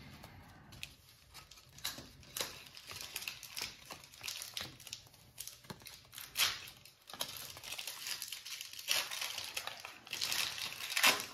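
Stack of 1993 Upper Deck baseball cards being thumbed through by hand: a run of irregular scratchy swishes and flicks as the glossy cards slide over one another.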